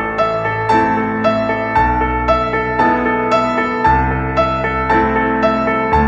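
Background piano music: single notes struck at an even pace about twice a second over a low sustained bass that changes every two seconds or so.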